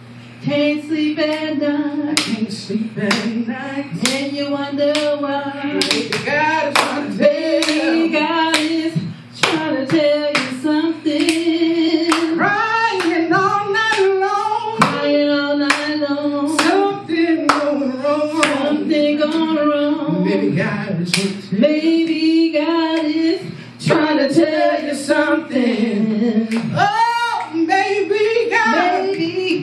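Two women singing a gospel song together into microphones, with hand claps keeping time.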